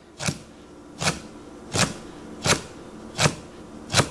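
Knife doing honekiri on a pike conger (hamo) fillet on a wooden cutting board: six crisp, evenly spaced cuts about three-quarters of a second apart, each chopping through the fine bones down to the skin without severing it.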